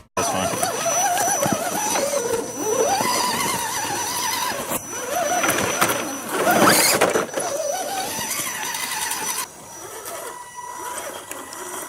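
Small electric motor and gears of a radio-controlled rock crawler whining, the pitch rising and falling with the throttle. It gets quieter near the end.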